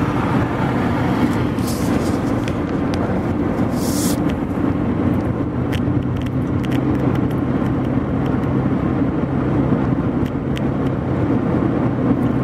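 Car engine and road noise heard from inside the moving car: a steady drone, with two brief hisses in the first few seconds and a few light ticks.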